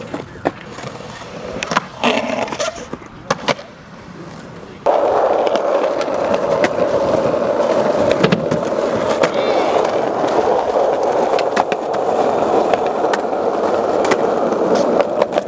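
Skateboard: a few sharp clacks and knocks of the board in the first seconds. About five seconds in, a sudden switch to the steady rumble of skateboard wheels rolling over rough asphalt, with occasional clicks.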